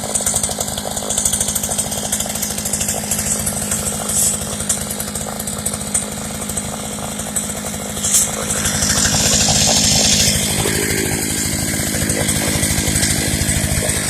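Partner P100 two-stroke chainsaw engine running steadily, speeding up and getting louder for about two seconds past the middle, then settling back.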